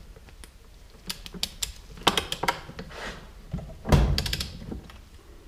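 Ratchet wrench clicking in short runs as the cap bolts of a piston's connecting rod are backed out, with a heavier metal knock about four seconds in.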